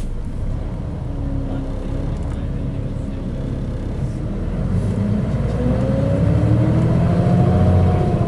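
Mitsubishi Fuso KC-MP617K city bus engine pulling away, its pitch and loudness climbing from about four seconds in to a peak near the end. The running sound is unusual for this model, which the uploader takes for the sign of some fault or trouble.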